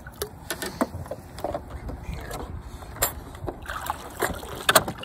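A string of sharp clicks and clunks as a MotorGuide Xi3 bow-mount trolling motor is handled and folded up into its stowed position on a paddleboard's front mount. The loudest knock comes near the end.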